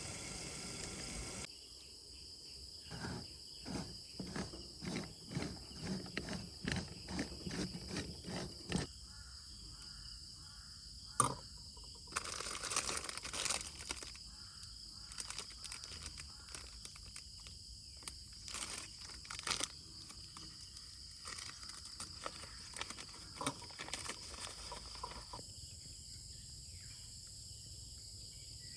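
Crickets and other insects calling in a steady high-pitched chorus. Over it comes a run of short crunching and rustling noises, about two a second for several seconds early on, then scattered rustles and a sharp click.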